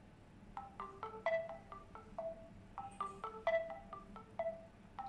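S9 kids' smartwatch ringing its locator tune: a short melody of struck, chiming notes that starts about half a second in and repeats, set off from the phone app's watch-finder to locate a lost watch.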